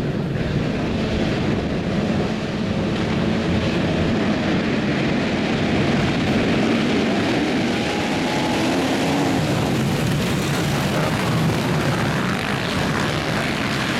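A full field of motocross bikes revving hard and racing off the start together, a dense mass of engine noise. The sound grows brighter and harsher in the last few seconds as the pack comes close.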